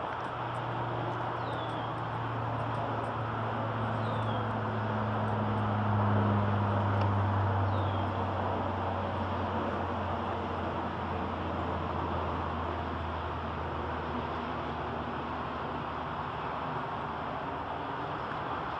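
Steady hiss of rain falling on open water, under a low drone of distant traffic that swells about six seconds in and then fades. A bird gives a short falling chirp three times in the first half.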